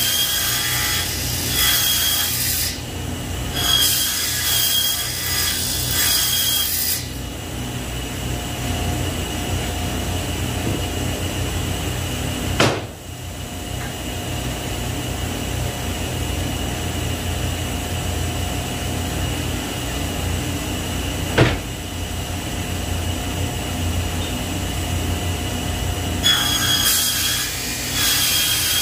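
Table saw running, its blade cutting through boards in several loud bursts over the first few seconds and again near the end, with the motor humming steadily in between. Two sharp knocks come in the middle stretch.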